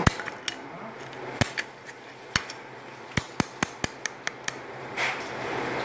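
A dozen or so sharp clicks and light taps at irregular intervals, coming quicker together in the second half.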